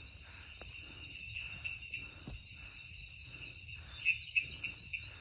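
Night insects chirping in a steady chorus, with hikers' footsteps on a forest trail; a few louder, sharper chirps stand out about four seconds in.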